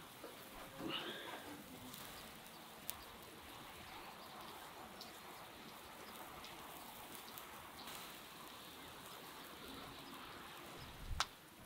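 Faint, steady rain falling on the ground. About a second in, a metal scrape and clink as the wire rack is lifted out of the clay tandoor, and a single thump near the end.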